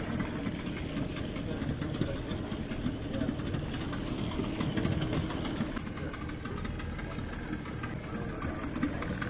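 An engine running steadily at idle, a continuous low hum.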